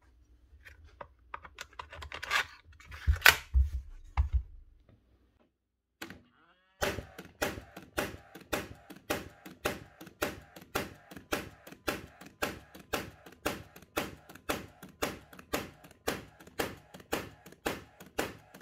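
Paslode IM65 gas nailer firing over and over in an even rhythm, a little over two shots a second, starting about seven seconds in after a few handling clicks and knocks. The freshly serviced nailer is cycling properly and working.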